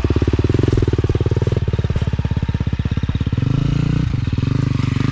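Dirt bike engine idling just after being started, an even, fast putter; about three and a half seconds in it picks up slightly and runs smoother.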